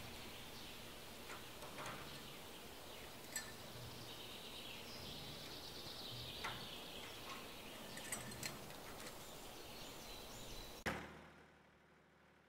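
Faint outdoor forest ambience: a steady high hiss with a few scattered light clicks. It cuts off suddenly near the end and fades away.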